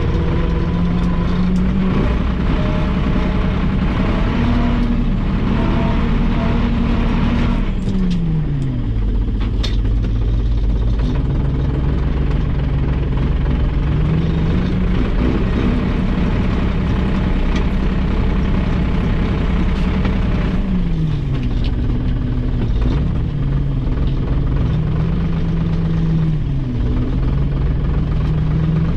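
Valmet 602 tractor's engine running, its revs dropping and picking up again several times.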